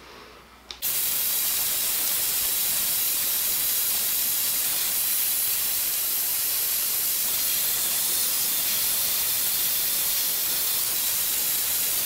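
Dyson Supersonic hair dryer blowing steadily on hair, an even airy hiss that starts abruptly about a second in and holds at a constant level.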